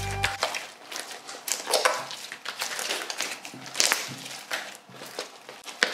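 Glitter slime being stretched, pulled and squished by hand, giving irregular soft crackling and squishing sounds.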